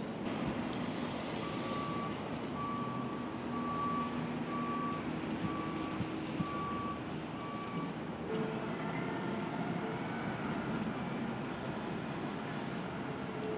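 A vehicle's backup alarm beeping in a steady series, about one beep a second, over steady street and traffic noise. The beeping stops a little past halfway through.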